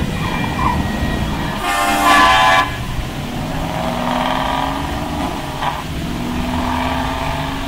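A loud horn blast lasting about a second, a couple of seconds in, over a steady low rumble.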